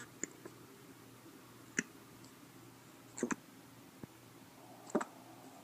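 A week-old newborn hiccuping: short, sharp hiccups about every second and a half, the middle one doubled, with a couple of faint clicks near the start.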